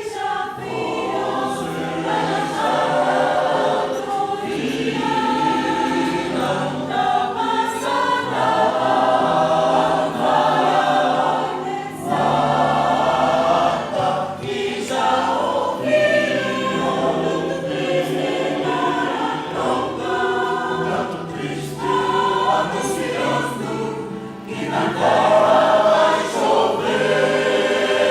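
A choir singing a Brazilian song in several voice parts, with piano accompaniment.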